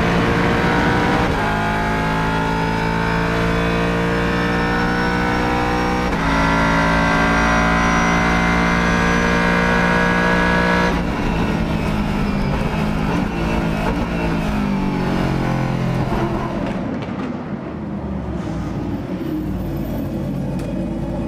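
Aston Martin V8 Vantage GTE race car's V8 engine accelerating hard through the gears. The pitch climbs steadily and drops sharply at each upshift, about a second in, at six seconds and at eleven seconds. In the last few seconds the engine note falls, rougher and a little quieter.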